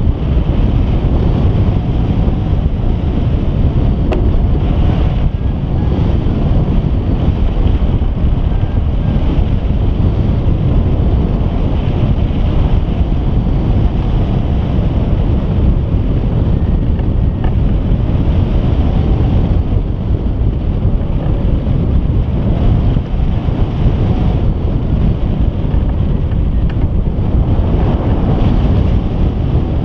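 Loud, steady wind rushing over the microphone of a wing-mounted camera on a hang glider in flight: the airflow of gliding flight.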